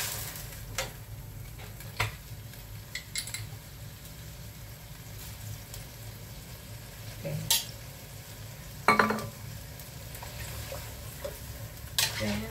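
Metal ladle stirring, scraping and knocking against a metal wok of simmering broth with bean curd sticks and mushrooms: a steady low bubbling under a handful of sharp clinks, the loudest about nine seconds in.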